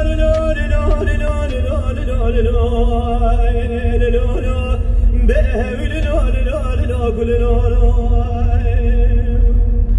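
Music: a man singing long, wavering held notes with ornamented turns over a steady accompaniment, with a constant low rumble underneath.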